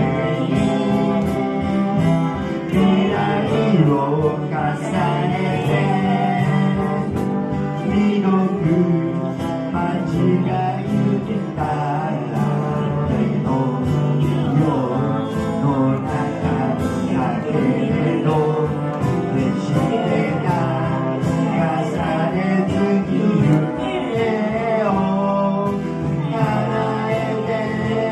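A song sung with guitar accompaniment, performed live at a concert.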